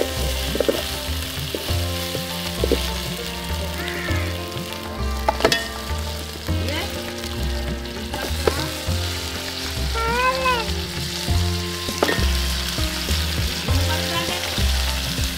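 Onions and green chillies frying in hot oil in an aluminium pot, a steady sizzle, with a few sharp knocks as pieces of raw crab are dropped in.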